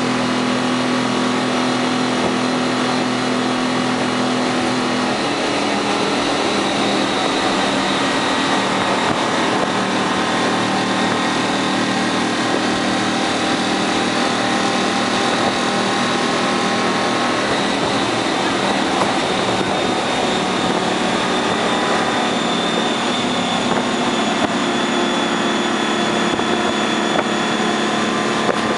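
6V53 Detroit Diesel two-stroke V6 in a 1972 Dodge AT4-760 prime mover, running steadily under way, heard from inside the cab with road noise. The engine note changes about five seconds in.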